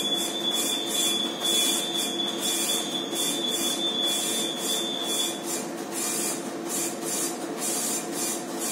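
Steady machinery hum on a ship's bridge, with a soft hiss that swells about twice a second and a thin high-pitched tone that stops about five seconds in.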